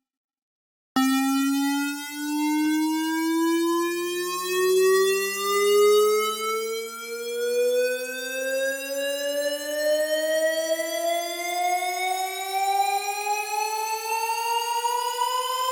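Xfer Serum synthesizer preset playing a riser: a buzzy tone rich in overtones glides slowly upward, rising about an octave. It starts about a second in and has a second, lower rising tone layered beneath it.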